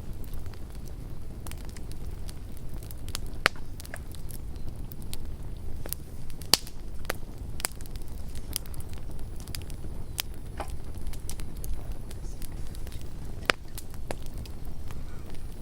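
Campfire crackling: irregular sharp pops and snaps from the burning wood over a steady low rumble, with the loudest pops about three and a half and six and a half seconds in.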